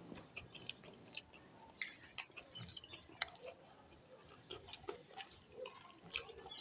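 Faint chewing of a besan-battered fried biscuit fritter, with small irregular crunches and mouth clicks.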